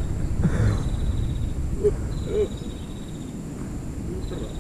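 Outdoor ambience: a low rumble that eases off about halfway through, with a faint high insect trill coming and going three times.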